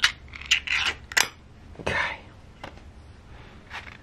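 Ring-pull lid of a small metal cat-food can being popped and peeled off: a few sharp snaps and a short scraping tear in the first second and a half.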